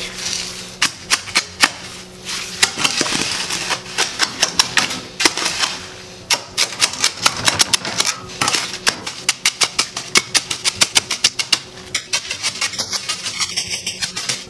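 Shovel blade repeatedly jabbing and tapping into wet concrete, a fast run of sharp taps with scraping between them, busiest in the second half. The fresh mix is being packed into a floor patch to compact it so no voids are left.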